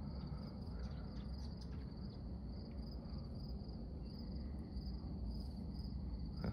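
Crickets chirping: a steady, evenly repeating high-pitched chirp over a low, steady rumble.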